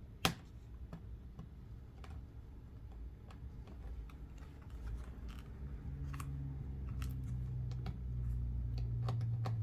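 Small clicks and taps of hands unplugging and reseating a laptop battery's cable connector, with one sharp click just after the start. A low hum grows louder in the second half.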